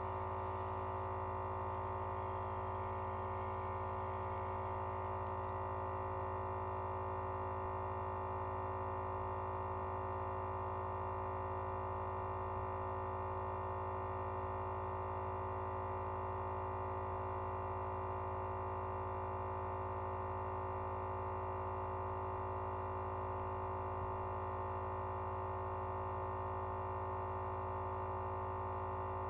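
Home nebulizer's air compressor running steadily during a breathing treatment, a constant hum that does not change.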